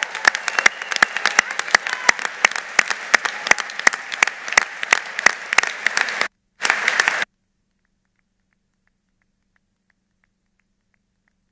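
Conference hall audience applauding, with sharp individual claps standing out. The applause cuts off abruptly about six seconds in, returns for a moment, then stops, leaving near silence.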